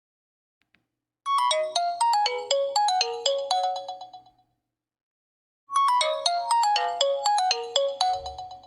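A Nokia 8000 4G default ringtone: a short bright tune of quick notes stepping down in pitch, played twice with a pause of about a second and a half between.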